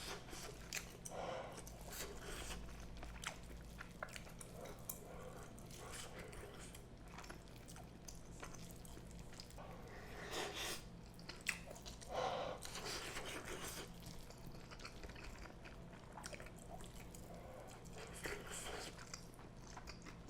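Close-miked chewing and eating of fried rice with chewy chunks of octopus and beef tripe: soft, wet mouth sounds with scattered small clicks, a little louder about ten to thirteen seconds in.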